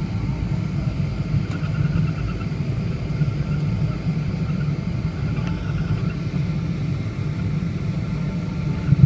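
Steady low rumble of a Boeing 777-200 airliner, heard from inside the passenger cabin, with faint steady tones above it and a brief bump near the end.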